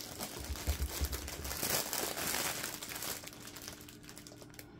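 Clear plastic bags crinkling as hands rummage through a large bag of small zip-lock packets of diamond painting drills. It grows loudest in the middle and fades near the end, with a few dull low bumps in the first second and a half.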